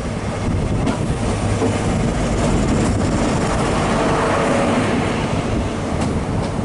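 High Speed Train (InterCity 125) rolling slowly past: the diesel power car, then its Mark 3 coaches, with a steady rumble of wheels on rail that swells midway and a few sharp clicks as the wheels cross rail joints.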